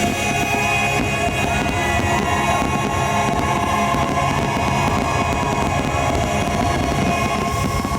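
Fireworks show finale: the show's music holds its closing chords over a dense, continuous barrage of firework bursts.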